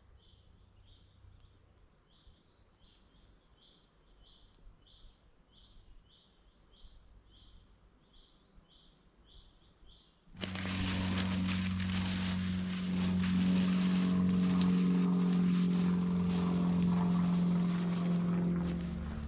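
A small bird repeats a short high note about three times a second against quiet woodland. About ten seconds in, a much louder steady droning sound with a low hum and a hiss starts abruptly and holds until near the end.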